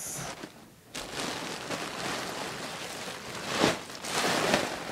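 Plastic packaging crinkling and rustling as hands dig through it inside a cardboard box, starting about a second in and swelling louder twice near the end.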